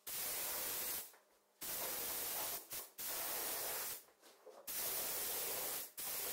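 Gravity-feed spray gun with a 1.4 mm nozzle hissing as it sprays a wet coat of epoxy primer, in five bursts of about a second each with short breaks between them.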